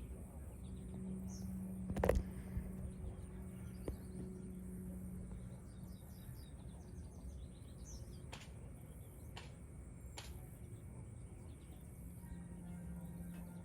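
Faint background noise with a steady low hum, small birds chirping now and then, and a sharp click about two seconds in followed by a few fainter clicks later.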